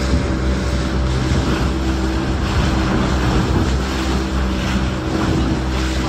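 A small open motorboat's engine running steadily at cruising speed, with wind and water rushing past the hull and spray.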